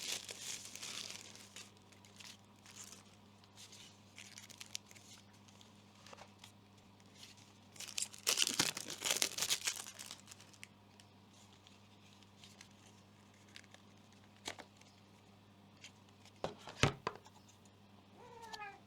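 Plastic packaging crinkling and rustling as it is handled, loudest for about two seconds around eight seconds in, with a few sharp clicks later on and a faint steady hum underneath.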